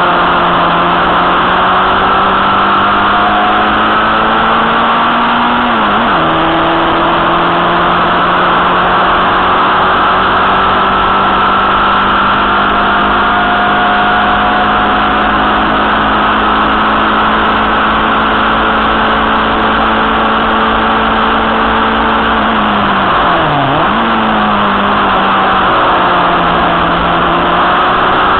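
Fiat Fire 1.2 four-cylinder engine of a Formula Junior race car under load, heard onboard. It pulls up through the revs, drops sharply in pitch about six seconds in as a gear is changed, then climbs slowly for a long stretch. Around 23 seconds in the pitch falls and jumps back up, as in a downshift under braking, with further shifts near the end.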